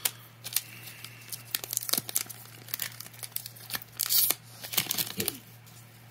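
Foil Pokémon booster-pack wrapper crinkling and tearing in gloved hands as the pack is opened and the cards pulled out: a run of sharp crackles, loudest about four seconds in.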